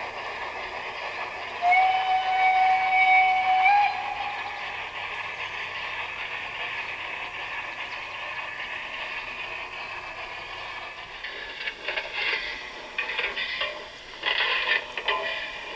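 A steam whistle played through a model locomotive's sound module: the recorded whistle of the Swiss HG 3/3 rack steam locomotive, one steady blast of about two seconds that lifts slightly in pitch as it ends, over the module's steady steam running sound. From about twelve seconds in, irregular clattering comes from the G-scale train's wheels passing close over the track.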